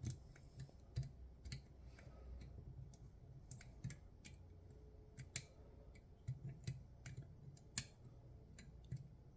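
Faint, irregular metallic clicks and ticks of a lock pick and tension tool working the levers inside a Chubb GPO No.6 six-lever lock, with one sharper click near the end.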